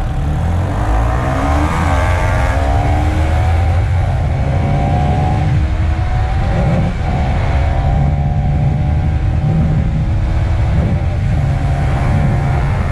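Bajaj Pulsar NS200 single-cylinder engine under hard acceleration in a drag run, its pitch climbing and dropping back at each of several upshifts, over a heavy low rumble.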